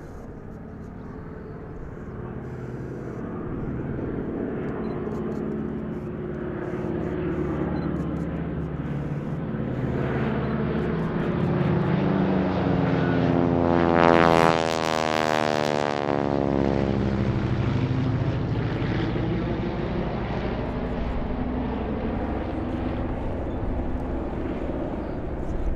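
Aircraft flypast: the engine sound builds steadily, is loudest just past halfway as the aircraft goes over, with its pitch dropping, then fades away.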